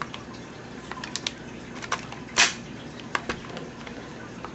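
Scattered sharp clicks and knocks from a KWC M92FS gas airsoft pistol being handled, about seven in all, the loudest about two and a half seconds in.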